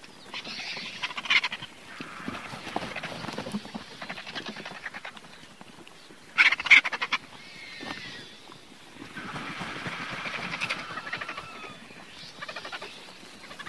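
Griffon vultures calling: a run of harsh, raspy calls a few seconds apart, with a short, loud rattling burst about halfway through.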